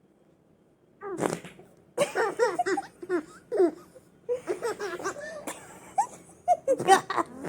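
A short fart-like blowing noise about a second in, then laughter and giggling in quick repeated bursts.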